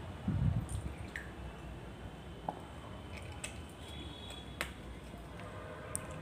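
Someone drinking from a plastic water bottle. A low gulping burst comes about half a second in, followed by scattered small clicks and taps from the bottle.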